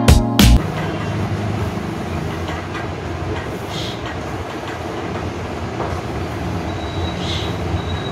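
Background music cutting off about half a second in, followed by a steady low background noise with no distinct events.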